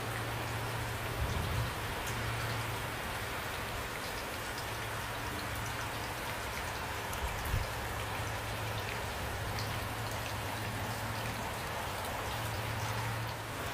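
Steady rain falling, with individual raindrops ticking on a surface, over a low steady hum. Two brief low thumps come about a second in and about halfway through.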